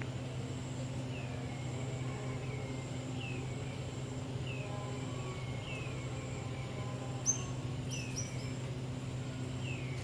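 A bird repeats a short falling whistled call about once a second, over a steady low hum. A few quick, higher chirps come about seven seconds in.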